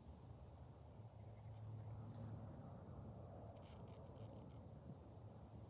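Quiet outdoor ambience: a faint, steady, high-pitched insect trill, with a low rumble underneath.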